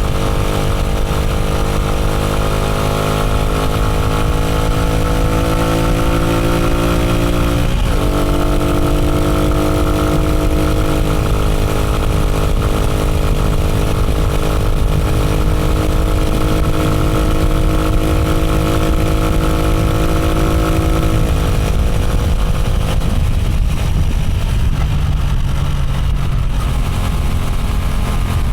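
Motorcycle engine under way, its pitch climbing steadily, dropping once about eight seconds in at a gear change and then climbing again; a little past two-thirds of the way through the engine note fades as the throttle eases off.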